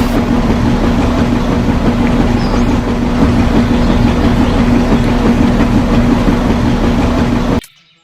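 A small electric motor running steadily with a buzzing hum, stopping abruptly near the end.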